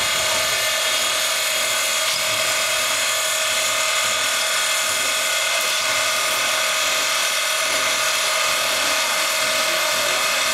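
East Broad Top narrow-gauge 2-8-2 Mikado No. 15 standing under steam, blowing off steam in a loud, steady hiss with a fixed tone running through it.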